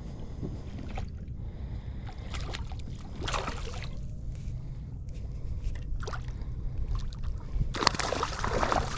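Water sloshing and splashing around a kayak hull while a hooked spotted seatrout is played alongside, with scattered short splashes or knocks over a steady low rumble.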